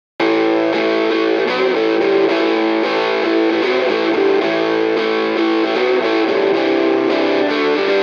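Music led by a distorted electric guitar.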